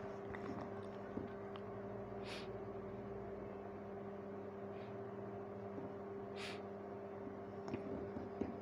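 Quiet room with a steady low hum, and two short breaths, about two seconds in and again about six seconds in; a few faint clicks near the end.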